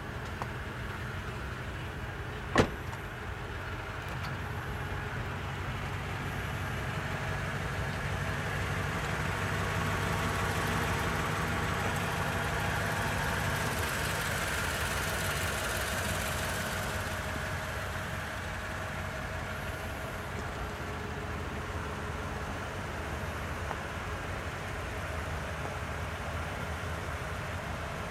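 Toyota Tundra pickup's engine running steadily, growing louder for several seconds around the middle and then easing back. A single sharp click about two and a half seconds in.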